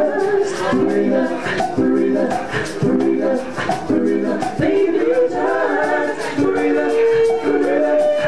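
A small vocal ensemble singing in close harmony, in short phrases that break off about once a second, over light percussion strokes. Near the end one voice holds a long high note.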